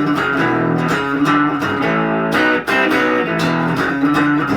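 Guild Aristocrat HH electric guitar, amplified, played in riffs of picked notes and two-note chords, each attack ringing on into the next.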